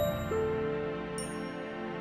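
Soft background music with held notes and high, bell-like chimes, one at the start and another about a second in.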